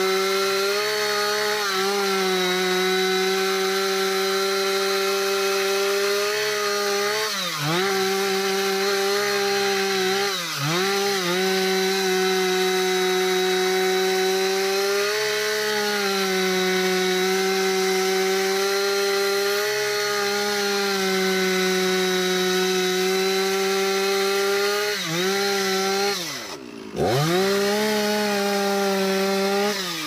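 Stihl two-stroke chainsaw running at high revs, cutting into the base of a teak trunk. The engine note holds steady with a few brief drops in pitch that climb straight back, the deepest near the end.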